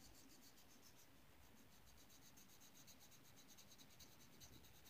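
Gray colored pencil shading on paper: faint, quick, even back-and-forth scratching strokes.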